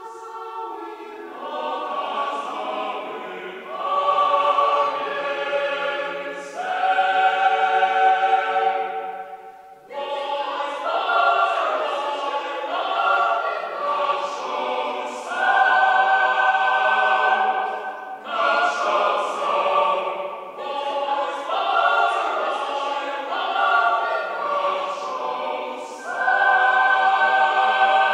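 Boys' and men's choir singing a Polish pastoral carol from the Spisz region unaccompanied, in held chords sung in phrases of a few seconds with brief breaks between them.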